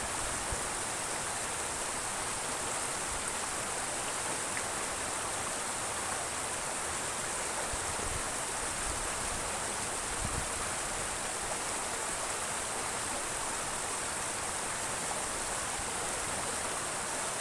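Fast water rushing and splashing through a narrow concrete-walled ditch, a steady, unbroken rushing noise.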